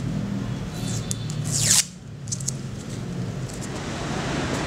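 Adhesive tape being pulled off a roll, a rising ripping hiss that cuts off abruptly about two seconds in, with a few small clicks of handling around it. After that a steady hiss of outdoor background noise.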